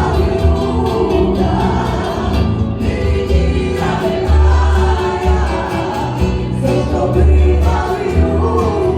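A Gypsy (Romani) song ensemble singing together in chorus over instrumental accompaniment, with low notes under the voices changing every second or so.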